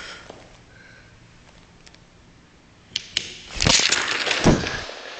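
A tall tower of wooden Jenga blocks collapsing: after a few quiet seconds, a sharp crack about three seconds in, then over a second of blocks clattering down onto the table.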